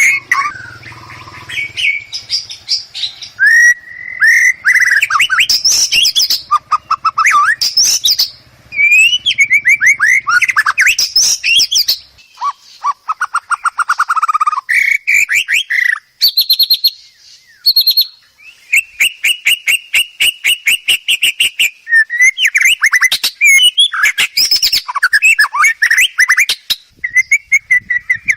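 White-rumped shama (murai batu) singing a continuous, varied song: clear whistled glides broken up by fast rapid-fire runs of repeated notes and trills, with only short pauses between phrases.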